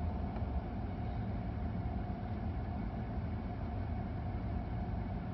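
L5P Duramax 6.6-litre V8 turbodiesel idling steadily, a low rumble heard from inside the cab, with a steady hum above it.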